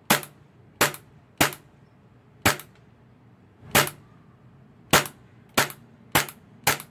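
Gas blowback airsoft pistol, an Action Army AAP-01 running on canned cooking butane, firing nine sharp single shots, coming quicker toward the end.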